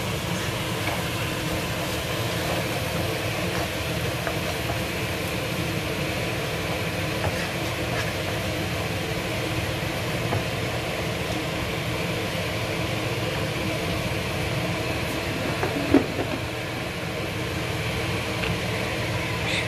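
Onions frying in a non-stick pan on a gas hob under a steady hum and hiss. One sharp knock about sixteen seconds in.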